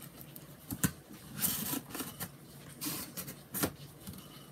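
Cardboard shipping box being handled to open it: short scrapes and rustles of cardboard, with a sharp click about a second in.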